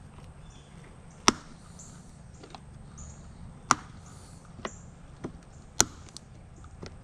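Plastic airbox lid on a Honda Rancher ATV being pressed and snapped into place: three loud, sharp clicks a little over two seconds apart, with a few softer clicks between.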